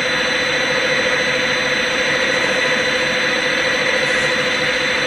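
CNC lathe running with its spindle turning: a steady whine of several held tones over an even hiss, as the tool takes a very light turning pass on the part.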